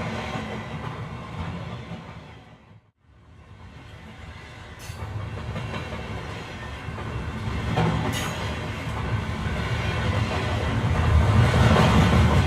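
Train running along the track: a steady low rumble with rail clatter and a couple of sharp clicks. It fades almost to nothing about three seconds in, then builds back up, louder toward the end.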